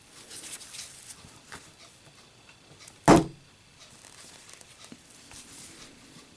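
A Zippo lighter dropped in a drop test, landing with a single sharp thud about three seconds in, after faint handling sounds.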